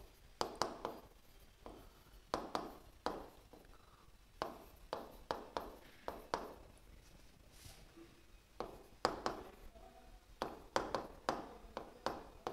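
Stylus pen tapping and scratching on the glass screen of an interactive display board while words are handwritten on it: sharp, irregular taps in quick clusters, with a short lull a little past the middle.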